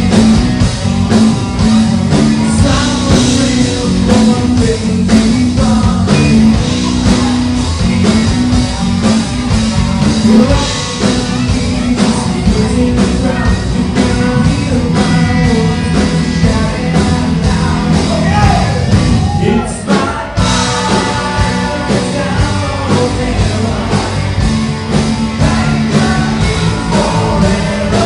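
A rock trio playing live: electric guitars and drums, with a sung lead vocal. The band drops out briefly about two-thirds of the way through, then comes back in.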